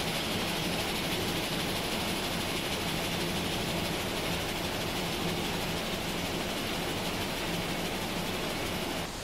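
Vibrating screen running, shaking shredded aluminium scrap across its deck: a steady machine noise with a faint low hum.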